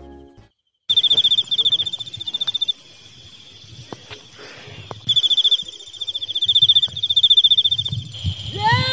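A cricket trilling, a high, fast-pulsing call in two long bursts, with a few faint knocks between them.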